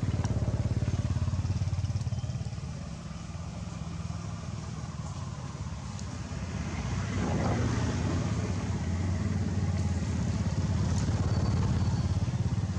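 A small engine running steadily, low and pulsing, dropping back somewhat about two seconds in and growing louder again about seven seconds in.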